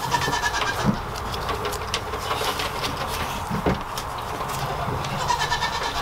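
Goats bleating, once near the start and again near the end, with a few sharp knocks in between.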